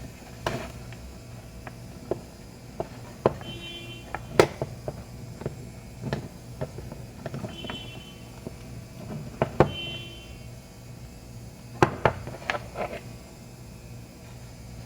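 Irregular clicks and taps of small tools and parts being handled while a charger's cable is worked on, with three brief squeaky chirps, over a steady low hum.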